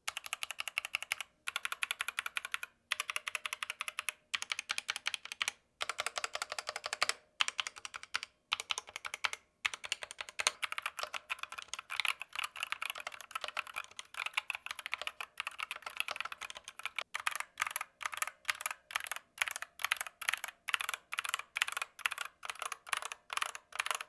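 Typing on a Ractous RTK61P 60% mechanical keyboard with Gateron Optical Red linear switches and pudding keycaps: a fast, steady patter of keystroke clicks with a fairly hollow sound. The typing comes in runs with brief pauses through the first half, then runs on more continuously.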